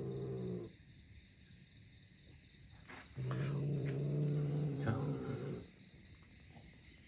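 Crickets chirring steadily in a fast, even pulse, with a low steady hum that cuts out twice. A few faint clicks fall in the middle.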